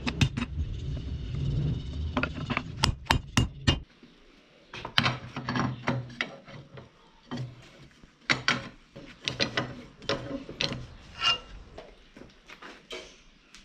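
Hammer strikes on steel over a low steady hum, with a quick run of four blows about three seconds in. After that the hum stops and lighter, irregular knocks and scraping of metal tools follow.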